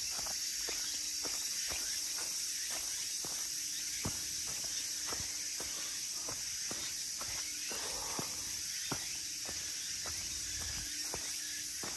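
Footsteps of a hiker walking down a hill trail, about two steps a second, over a steady high hiss.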